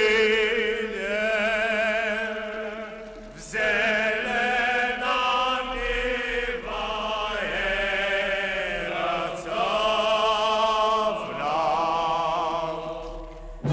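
Church chant sung by a choir in slow, held notes with a wavering vibrato, several voices together, with a new phrase entering about every two to three seconds.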